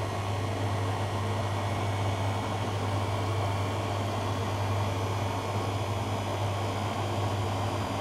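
Beko WM74155LS washing machine running mid-cycle with water in the drum: a steady low hum over an even rushing noise, with no breaks.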